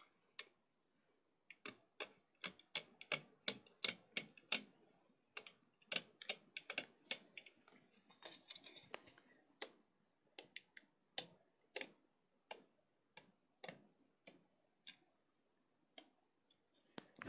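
Rubber bands clicking and snapping off the clear plastic pegs of a Bandaloom as the chain of a single bracelet is pulled up off the loom: a long run of faint, irregular clicks, one to three a second.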